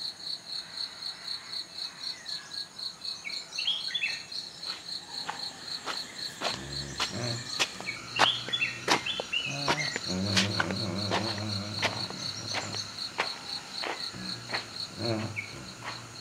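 Insects chirping in a steady, rapid pulse, with short bird chirps. From about five seconds in there are scattered sharp clicks and knocks, and a low hum starts at about six seconds.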